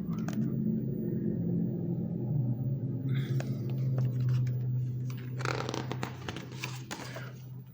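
A steady low hum with a few faint clicks, joined by a rustling noise from about five and a half seconds in until near the end.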